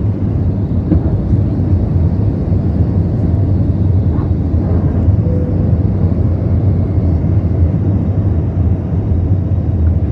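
Airbus A320-200 jet engines at takeoff power, heard from inside the cabin during the initial climb: a loud, steady, deep rumble.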